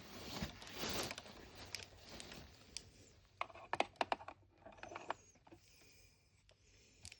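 Small plastic miniature toy food items being handled: rustling at first, then a quick run of light clicks and taps about three seconds in as pieces are set down against a plastic toy fridge.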